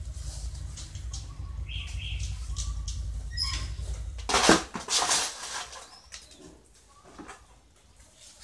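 Hands and a steel trowel working wet cement mortar: scraping, patting and rustling handling noises. A low rumble runs under the first half, and a loud rustle comes about four and a half seconds in.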